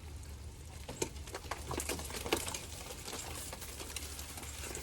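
Faint scattered clicks and a brief rustle near the end, over a steady low hum.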